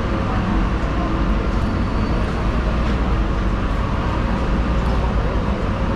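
Steady loud background din, a low rumble with indistinct noise over it and a few faint ticks.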